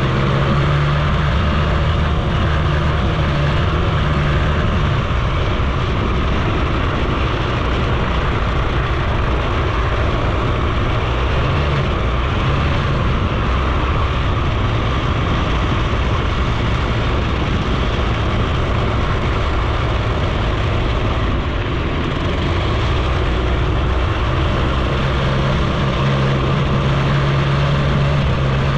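Suzuki FZ 50 moped's small two-stroke single-cylinder engine running steadily under way, heard together with wind and road noise on the handlebar-mounted camera. The engine note is stronger at the start and again near the end.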